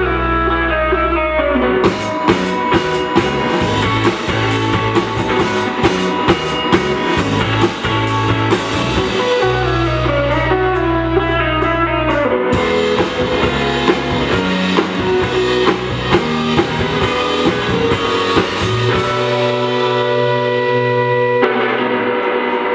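Live rock band playing an instrumental passage: electric guitar, electric bass and drum kit with crashing cymbals. Near the end the drums stop, leaving the guitars and bass ringing on held chords.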